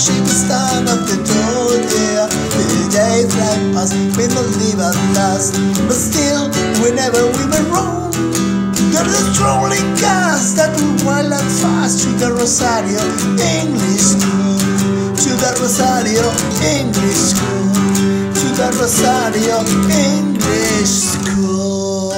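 Folk-punk version of a school hymn: strummed acoustic guitar over a steady low held note, with a bending melody line rising above it midway.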